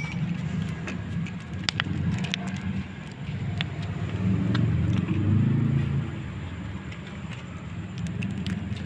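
A motor vehicle's engine running nearby, a low steady rumble that swells about four to six seconds in, with scattered faint clicks over it.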